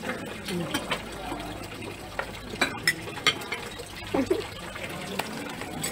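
Café table ambience: a steady rushing background with scattered sharp clinks and knocks of tableware, and brief snatches of voice.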